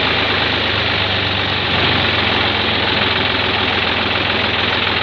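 Farm tractor's diesel engine running steadily as the tractor drives along a dirt road, a loud, even clatter and hum.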